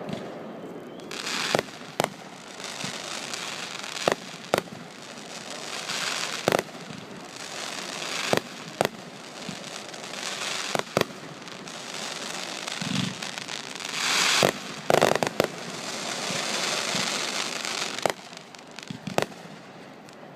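Aerial fireworks display: about a dozen sharp bangs of shells bursting at irregular intervals, between stretches of crackling hiss from the bursts.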